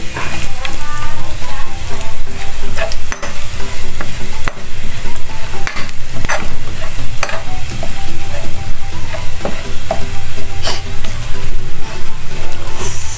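Minced garlic sizzling in hot oil in a wide metal pan as it is toasted golden, stirred with a utensil that scrapes and taps against the pan now and then.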